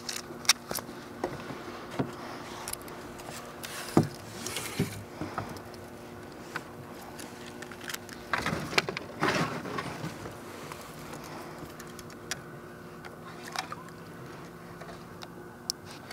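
Fishing tackle being handled while a chatterbait is rigged with a soft-plastic trailer: scattered clicks and knocks, with a longer rustle about nine seconds in, over a faint steady hum.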